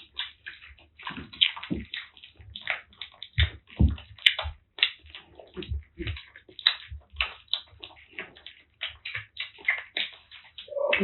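Kittens eating close to the microphone: a quick, irregular run of small wet chewing and lapping clicks.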